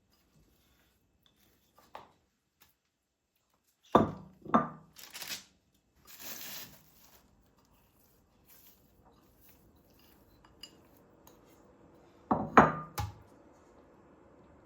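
Kitchenware being handled: dishes and cutlery knocking and clinking in two short clusters, the first about four seconds in and the louder one near the end.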